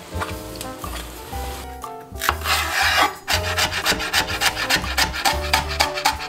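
Chef's knife chopping green onion finely on a wooden cutting board: quick, even knocks of the blade on the wood, starting about three seconds in, just after a short scraping rasp. Soft background music runs underneath.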